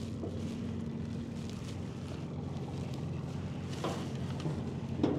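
Boat engine running steadily with a low, even hum, with a couple of faint knocks near the end.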